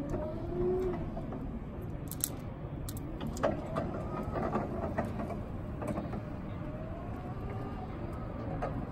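Battery-electric drive motor of a Raymond walk-behind pallet stacker whining over a low rumble as the truck drives across asphalt, its pitch rising and falling with speed, with a few sharp clicks two to three seconds in.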